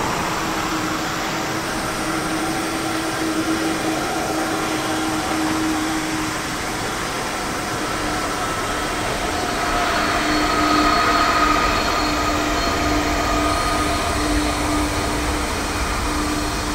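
Airbus A330-223's twin Pratt & Whitney PW4000 turbofans running at taxi power: a steady rushing hum with a held whine. The whine brightens and the noise swells a little about ten seconds in.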